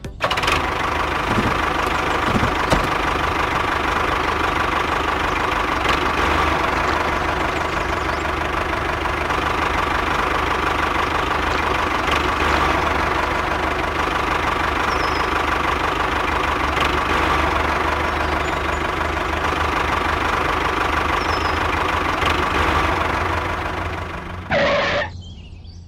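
Small motor of a miniature model tractor running steadily as it drives its paddle wheels through wet mud. The sound changes briefly about a second before the end, then cuts off.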